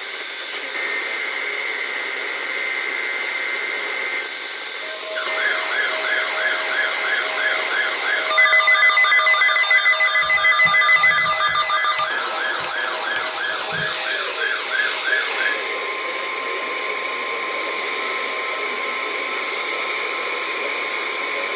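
Electronic emergency alert tones from a radio broadcast: steady tones, then a warbling tone repeating about three times a second for some ten seconds, loudest in the middle, settling into a single steady tone.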